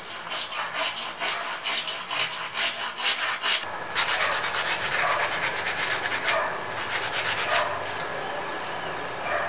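Small hand hacksaw cutting through acrylic sheet in quick, regular strokes for about three and a half seconds, then sandpaper rubbed back and forth along the freshly cut acrylic edge to smooth it, fading out near the end.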